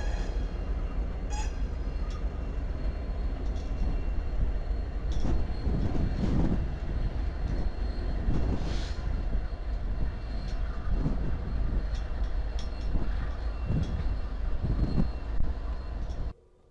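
Canadian Pacific diesel locomotive passing slowly, its engine giving a steady low rumble, with scattered clanks and thumps from the moving train. The sound cuts off suddenly near the end.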